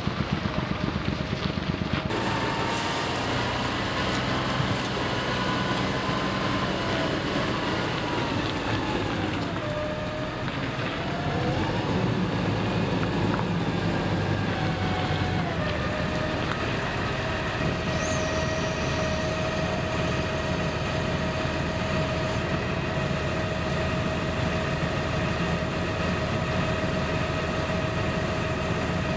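Fendt 936 Vario tractor's six-cylinder diesel running at low speed while it manoeuvres, with a whine that dips and rises in the first half and then holds one steady pitch in the second half as the tractor sits close by.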